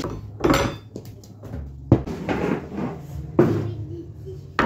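Four sharp knocks of hard objects being handled or set down, each with a short ring-out, spaced a second or more apart.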